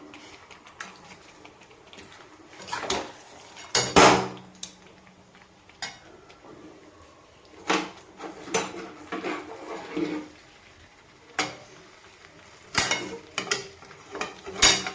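A cooking spoon scraping and knocking against a karai (wok-like pan) as chicken and potatoes in a thick masala are stir-fried down in mustard oil. The scrapes come in irregular strokes, the loudest about four seconds in, with more in bursts toward the middle and the end.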